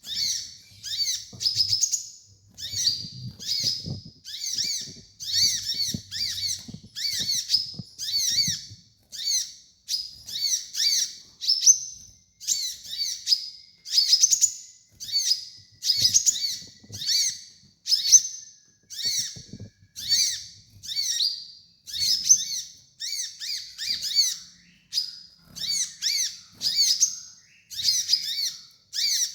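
Kolibri ninja sunbird singing: quick, high-pitched twittering phrases, about one a second, repeated without a break.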